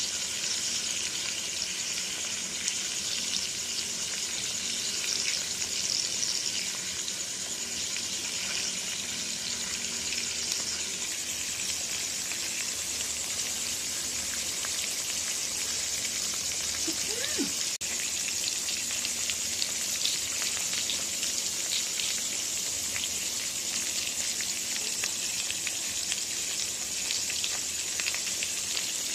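Masala-coated chicken pieces frying in oil in a pan: a steady sizzle with many small crackles and pops.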